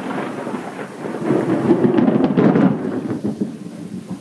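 Thunder from a close lightning strike: a loud, crackling rumble that swells about a second in and dies away near the end, over falling rain.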